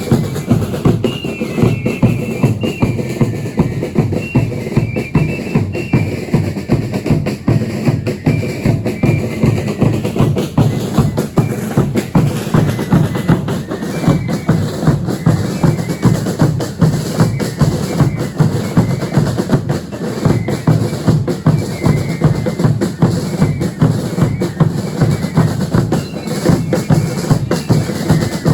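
Bass drums and snare drums of a religious dance troupe playing a fast, steady beat, with strong strokes about three times a second and quick snare rolls between them.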